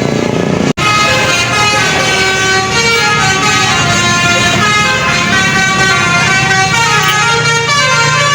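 Tour bus's Basuri telolet horn playing a tune: several held horn notes at once, stepping up and down in pitch. The tune starts after a brief break under a second in.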